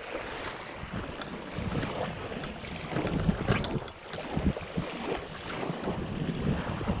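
Wind buffeting the microphone over water lapping against a kayak, with scattered light knocks and splashes.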